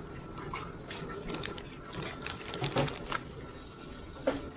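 Plastic instant-ramen packet crinkling and rustling as it is handled, a quick run of small crackles and clicks that is busiest in the middle, then a single sharp tap near the end.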